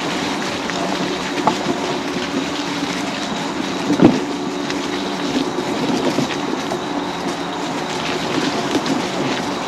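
High-speed mobility scooter's electric drive running steadily as it rolls along a trail, with a humming tone and scattered rattles and knocks from the bumps. A sharper knock comes about four seconds in.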